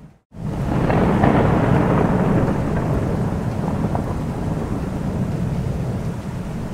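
Thunder rolling over steady rain. After a brief cut-out at the very start, a deep rumble swells up within the first second and then carries on as a long roll under the rain.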